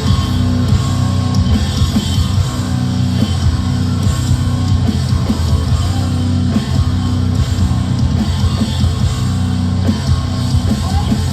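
Live heavy rock band playing loud and steady: a distorted electric guitar riff that repeats over a drum kit, with no vocals.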